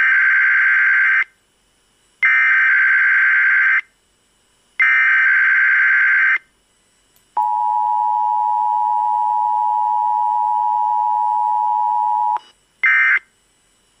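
Emergency Alert System Required Weekly Test heard off a radio broadcast. Three screechy digital header data bursts about a second apart are followed by the two-tone attention signal (853 and 960 Hz), held for about five seconds. A short end-of-message data burst comes near the end.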